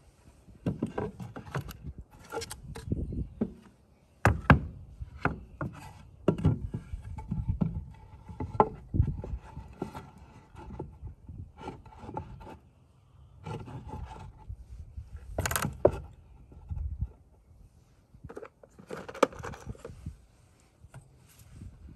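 Short cut pine boards being knocked together, slid and stacked by hand on a wooden trailer deck: irregular wooden clacks and scrapes, the sharpest knocks about four, nine and fifteen and a half seconds in.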